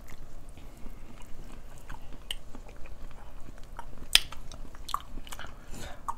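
Close-up chewing and wet mouth sounds of people eating seafood boil, with short scattered clicks and smacks; the sharpest click comes about four seconds in.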